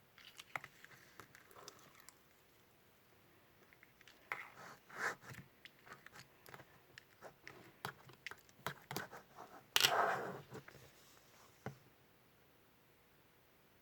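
Green mint pom-pom slime being squeezed and pressed by hand, giving irregular small clicks and crackles, with one louder squish about ten seconds in.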